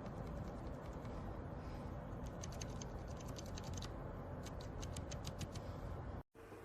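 Keys on a mechanical keyboard being typed: two quick runs of soft clicks over a steady low hum, with the audio cutting out briefly near the end.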